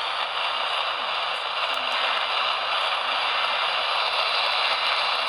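Steady hiss of radio static from a radio receiver, as between stations or on a weak signal.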